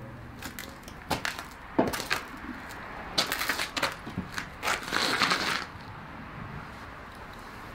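A few footsteps and knocks on a gritty floor, then two longer scraping, crunching sounds as a man sits down heavily in a wooden armchair.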